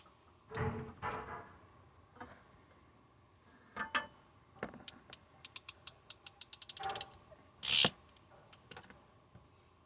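A ratcheting hand tool clicking in a run of about twenty quick clicks that speed up, with handling knocks and rustling around it and one short, louder clack near the end.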